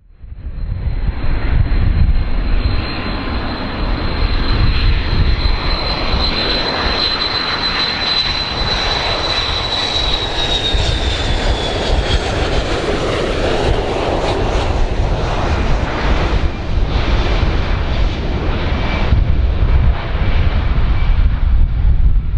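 Boeing 727 trijet on landing approach, its Pratt & Whitney JT8D engines running loud over a deep rumble. A high, steady whine slides down in pitch about ten seconds in.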